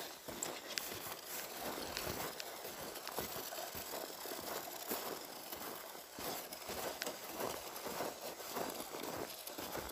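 Footsteps crunching in snow at a walking pace.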